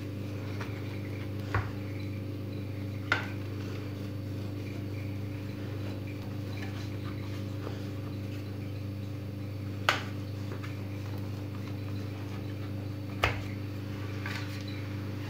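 A knife cuts soft baked bread on a metal baking tray, its blade clicking sharply against the tray four times, over a steady low hum.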